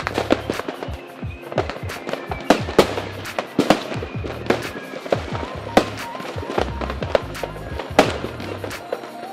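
Aerial firework shells bursting in quick, irregular succession: many sharp bangs and crackles, a handful of them much louder than the rest. Music with a steady bass line plays underneath.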